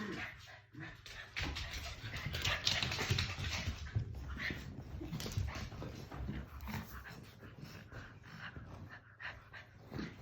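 Chow Chow puppy making small dog noises as it scuffles and moves about, with many short clicks, rustles and low thuds.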